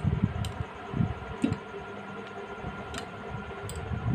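A handful of sharp clicks and soft knocks as large steel tailor's shears and a marking pencil are handled and laid down on cloth over a table.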